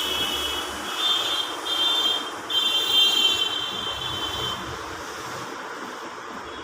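High electronic beeping in four bursts of unequal length, the last and longest lasting about two seconds, over steady traffic-like background noise.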